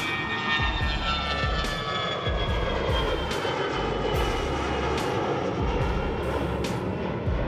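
MQ-4C Triton drone's turbofan engine flying past overhead: a steady jet rush with several whining tones that slowly fall in pitch as it passes.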